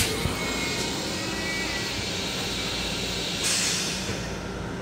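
A click as the flush button of an M7 railcar toilet is pressed, under the steady rumble of the moving train. About three and a half seconds in, a hiss of water spraying into the steel bowl starts suddenly and fades over about a second, the start of the flush cycle.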